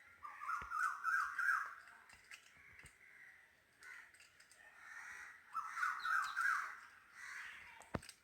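A crow cawing in two quick runs of about four caws each, one about half a second in and another around six seconds in. A few faint sharp clicks come between them, the sharpest near the end.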